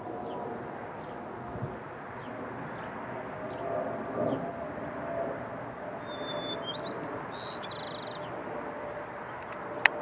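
White-crowned sparrow singing one short song about six seconds in: a clear whistled note followed by a quick run of notes, over a steady low background rumble. A single sharp click just before the end.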